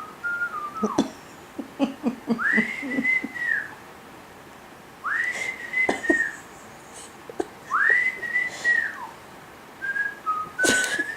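Whistling: three drawn-out whistled notes, each about a second long, sliding up, holding and dropping away, with a few shorter whistled notes and a sharp click near the end.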